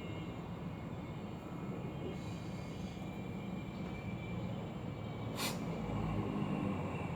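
Steady low background rumble with a single sharp click about five and a half seconds in.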